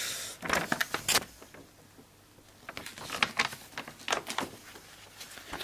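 Rustling and light clicks of large folded paper poster sheets being handled and unfolded, in short irregular bursts with a quieter gap about two seconds in.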